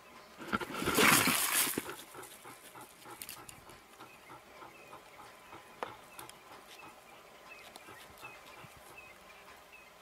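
A harsh hissing burst about a second in during a leopard's standoff with a crested porcupine, then quiet with scattered faint clicks and short high chirps.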